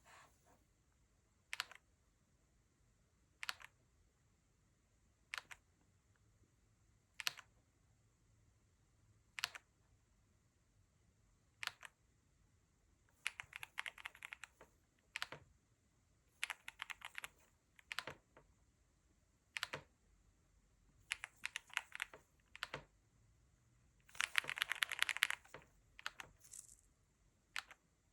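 MonsGeek M1 V5 mechanical keyboard being typed on: single key presses about every two seconds at first, then short quick runs of keystrokes, with the densest run of typing near the end.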